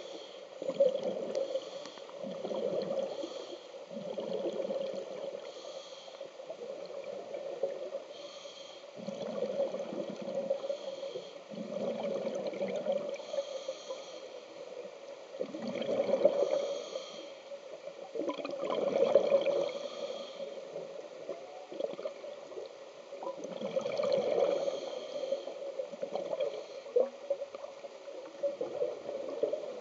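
A scuba diver breathing through a regulator underwater: a hiss on each inhale, then a gurgling burst of exhaust bubbles on each exhale, a breath every few seconds.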